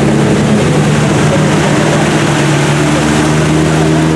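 Off-road 4x4 engine running under load with a steady drone; its pitch rises slightly near the end.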